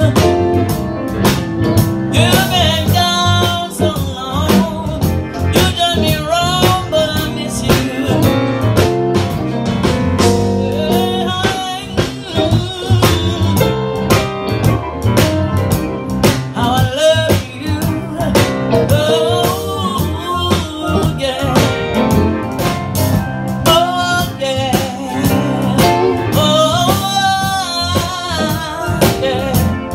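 Live blues band playing: drum kit and keyboard under a lead melody that wavers and bends in pitch.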